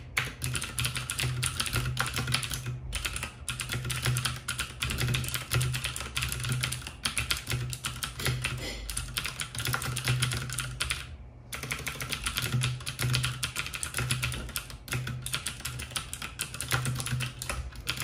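Fast, continuous typing on a WASD Code 87-key mechanical keyboard with clicky Cherry MX Blue switches: a dense stream of sharp key clicks with a few brief pauses.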